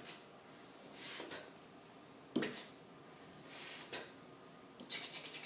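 Short hissing whoosh sound effects, one for each stroke of an uppercase A. Two loud high hisses come about a second and three and a half seconds in, with a shorter, fuller burst between them and a crackly run of clicks near the end.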